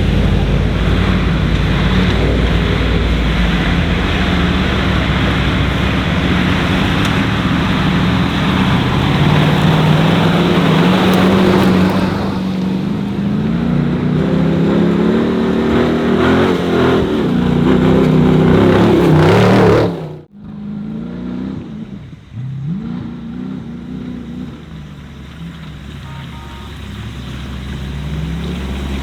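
Off-road 4x4 engines running hard and revving, the engine pitch climbing several times. About two-thirds of the way through, the sound cuts abruptly to a quieter engine that still revs up now and then.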